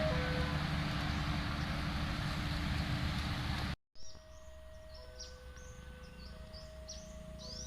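Train running past on the track, a loud steady rumble and rail noise, which cuts off abruptly about halfway through. Afterwards, birds chirp over a quieter background, with a steady two-note tone alternating behind them.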